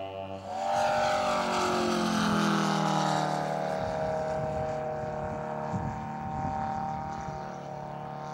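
Engine of a large-scale radio-controlled model airplane in flight, a steady drone with a falling pitch over the first couple of seconds, then holding level.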